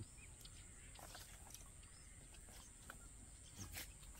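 Near silence: faint outdoor ambience with a steady faint high hiss, a few scattered faint ticks and a couple of brief faint chirps.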